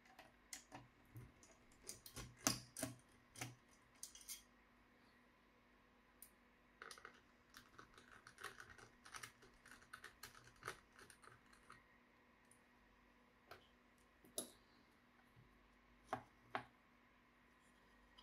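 Scattered small clicks and taps from a laptop being handled during disassembly, coming in two clusters with a few single clicks later.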